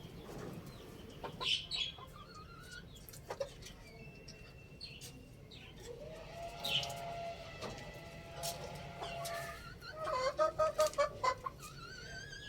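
Chickens calling: one long held call from about six seconds in to about eight seconds, then a fast run of short repeated notes near the end, with scattered short high bird chirps around them.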